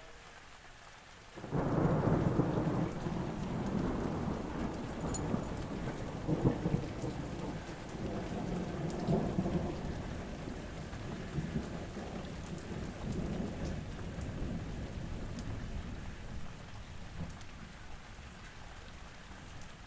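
Steady rain with a roll of thunder that breaks suddenly about a second and a half in and rumbles on, slowly fading, for most of the rest.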